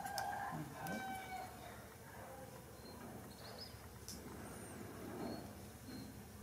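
Animal calls: a few short, steady-pitched cries in the first second and a half, then small faint high chirps now and then.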